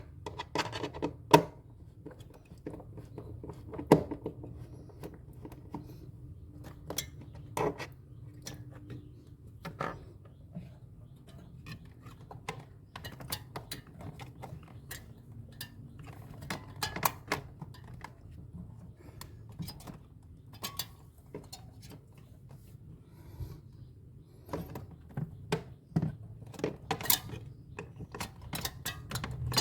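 Irregular clicks, clinks and small knocks of hard parts and tools being handled while taking apart a refrigerator, over a steady low hum.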